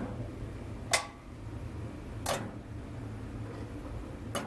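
Four sharp, irregularly spaced clicks from the horizontal band saw's arm and fittings being handled, over a low steady hum.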